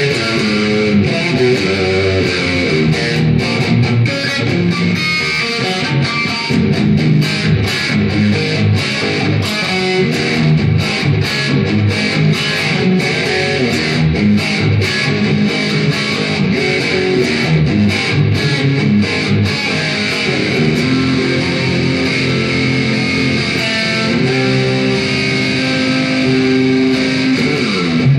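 Electric guitar, a Kramer 5150 Baretta replica with a Seymour Duncan JB bridge pickup and Floyd Rose trem, played through a Marshall VS265 Valvestate amp with only the amp's reverb: busy riffing, then held notes, and a falling pitch dive near the end.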